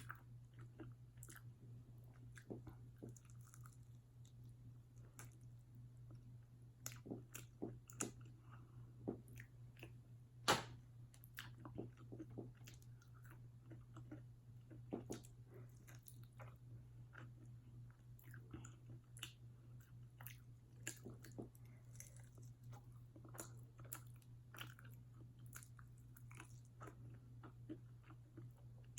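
Close-up chewing and biting of crunchy fried chicken wings: irregular wet mouth clicks and crunches, with one louder crunch about ten seconds in, over a faint steady low hum.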